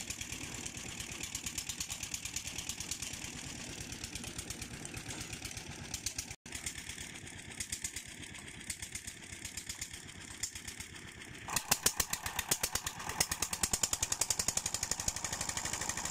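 Engine of a tubewell boring rig's winch running steadily with a fast, even beat, growing louder and sharper about two-thirds of the way through.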